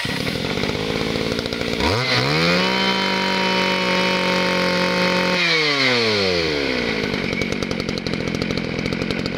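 Mitsubishi TL23 two-stroke brushcutter engine running on a test start. It idles, is revved up about two seconds in and held at high speed for about three seconds, then drops back to idle. It runs smoothly.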